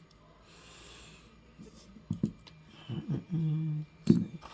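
A man's short, steady low hum about three seconds in, after a faint rustle under a second in, with a brief vocal sound just after four seconds.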